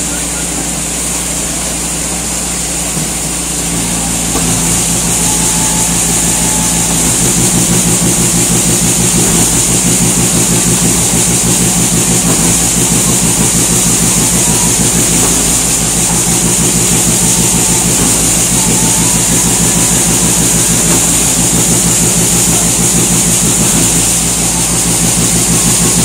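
ABJZ40C concrete mixer pump running under load while its drum turns and discharges concrete, a steady engine hum with a high hiss over it; it gets louder about four seconds in and then holds steady.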